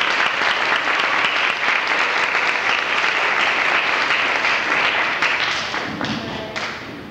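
Audience applauding, dense and steady, then tapering off near the end.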